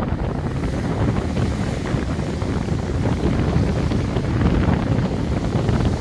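Wind buffeting the microphone over surf breaking and washing up the beach, a steady rumbling noise heaviest in the low end.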